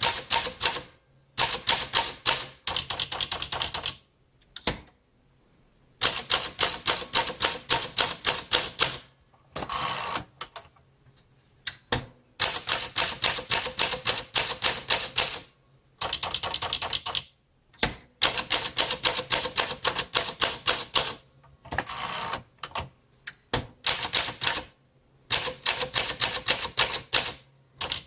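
1936 Smith Corona Standard flat-top manual typewriter being typed on: runs of quick, sharp typebar strikes, several a second, broken by short pauses. Twice, about ten seconds in and again about twenty-two seconds in, a longer, smoother rattle sounds.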